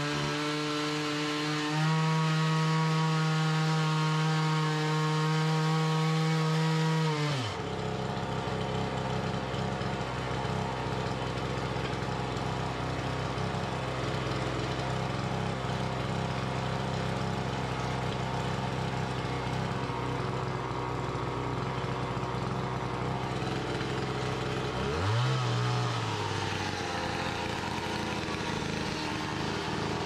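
Two-stroke chainsaw running at high throttle, then dropping in pitch about seven seconds in as it bites into an alder log and cuts under load. Near the end it briefly revs up and settles back into the cut.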